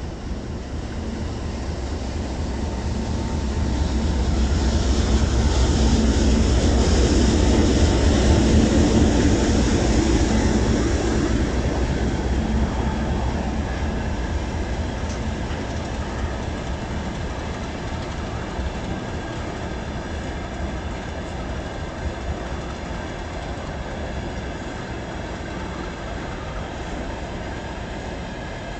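GE C36-7i diesel-electric freight locomotive passing close by, loudest about four to twelve seconds in. A long string of tank wagons then rolls past with steady wheel and rail noise and a few clicks.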